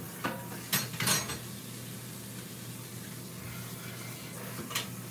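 A few short clicks and clinks of kitchen handling, three close together in the first second or so and one more near the end, over a steady low hum.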